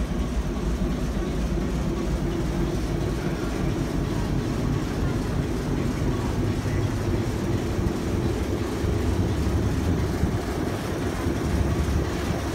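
Diesel engine of a British Rail Class 08 shunter running steadily at low revs as the locomotive moves slowly along the track.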